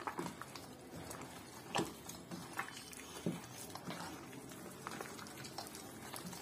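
A hand squeezing and kneading raw chicken pieces through wet gram-flour and spice batter in a steel bowl: irregular soft wet squelches with a few louder sharp taps, the loudest a little under two seconds in.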